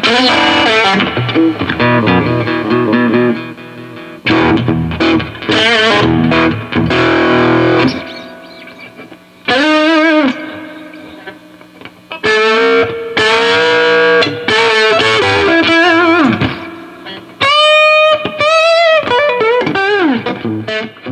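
Electric guitar with a home-wound pickup played through a cranked tube amp: distorted chords and single notes, with bent notes and vibrato, in several phrases that ring out and briefly die away between them.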